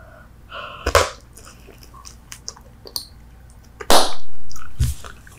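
Bubble gum being chewed close to the microphone: wet mouth clicks and smacks, a loud smack about a second in and a louder, longer burst about four seconds in.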